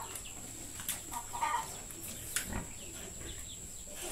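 Faint farm animal calls: a few short, scattered calls over a quiet background, with a soft knock about two and a half seconds in.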